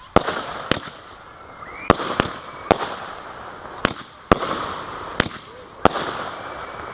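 Genesis firework going off: about nine sharp bangs at irregular intervals of half a second to a second, over a continuous crackling hiss.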